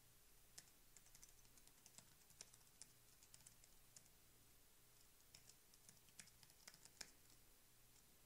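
Faint typing on a computer keyboard: light, irregular key clicks as text is entered.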